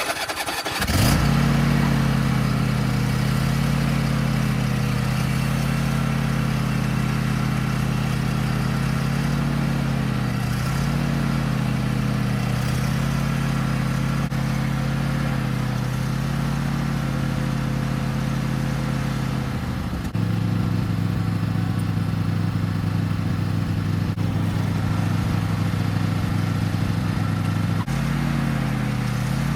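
Riding lawn mower's small engine running under load as the mower strains against a tow strap with its wheels spinning in the mud. The engine comes up about a second in, its pitch dips a few times, and its note shifts about two-thirds of the way through and again near the end.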